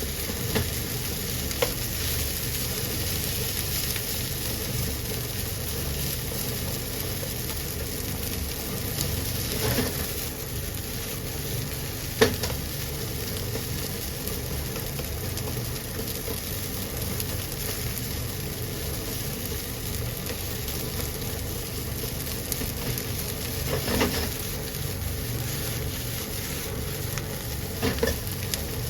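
Green onion fried rice stir-frying in oil in a frying pan, sizzling steadily, with a spatula clicking against the pan a handful of times.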